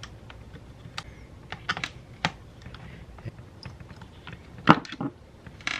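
Small screws being taken out by hand from the plastic back housing of a Toyota Supra Mk4 instrument cluster: light, irregular clicks, with two louder clicks near the end.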